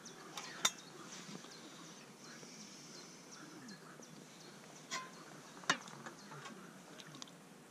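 Sharp metallic clicks and taps of a tin can being handled: the lid is pulled off near the start, and the can is knocked against a pan as its contents are tipped out, about five to six seconds in. A faint frog chorus runs underneath.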